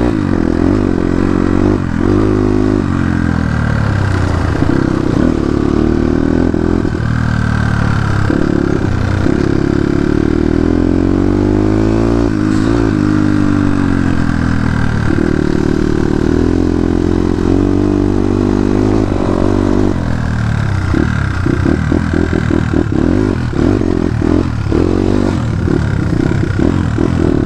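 Dirt bike engine being ridden hard, its pitch climbing and dropping again and again as the rider revs up and shifts. From about 20 seconds in it runs lower and choppier, with a rattling, uneven note.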